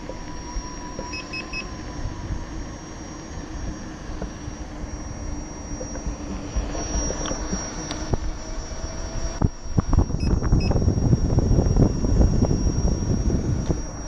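Gotway MCM4 electric unicycle's hub motor whining steadily while riding. From about nine seconds in, loud wind buffeting on the camera microphone takes over. Short high beeps come three times about a second in and twice near ten seconds.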